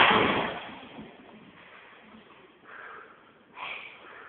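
A loud thump as two fighters in gladiator gear collide while grappling, fading over about a second, then a few quieter short scuffling noises.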